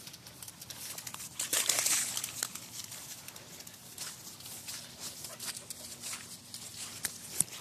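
Footsteps swishing and scuffing through wet grass, with scattered sharp clicks and a louder rustling stretch about two seconds in.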